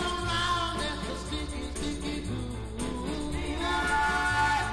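Background music: a song with a singing voice, held notes over a bass line that repeats about once a second.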